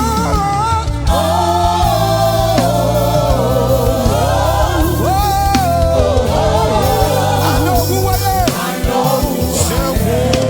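Live gospel praise song: several voices singing a held, gliding melody together over a band with a steady bass.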